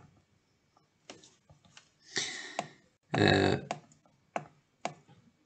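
Scattered sharp clicks and taps from drawing on screen with a computer pointer, with a breath just after two seconds and a short throaty vocal noise just after three seconds.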